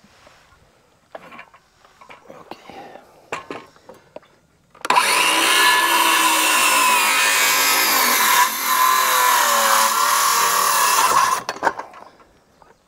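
A few faint knocks, then a power tool's motor runs for about six seconds and cuts off sharply. Its whine dips in pitch partway through, as under load.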